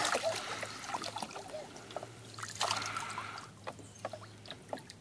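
Water sloshing and splashing in a small inflatable wading pool as a toddler moves about in it, fading out from a splash, with a brief louder slosh a little past halfway and scattered drips and small splashes near the end.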